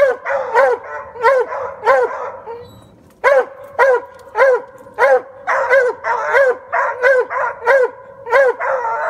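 Coon hounds barking treed at a raccoon up a tree: a steady run of loud barks, about two a second, with a short pause about two seconds in. The bark at the tree signals that the dogs have the raccoon treed.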